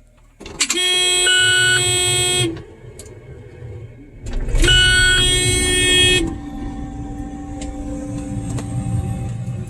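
A vehicle horn blown twice, each a long steady blast of about two seconds. A steady low rumble runs underneath and continues after the second blast.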